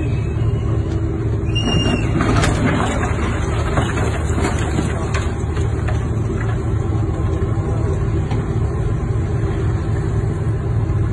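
A large ship's engine running with a steady deep rumble. A cluster of sharp knocks and cracks comes over it about two to five seconds in.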